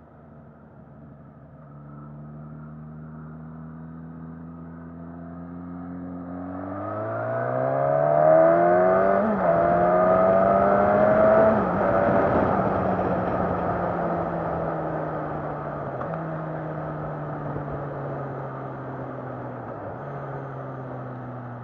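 Suzuki Katana's 999 cc inline-four engine pulling hard from about six seconds in. Its pitch climbs steeply and breaks sharply twice at the gear changes, then it eases off with the pitch sinking slowly. Wind rush rises and falls with the speed.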